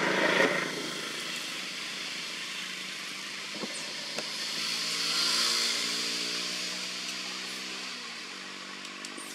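Road traffic: a vehicle's tyre and engine noise swells to its loudest about halfway through and then fades as it passes, after a louder one dies away in the first second.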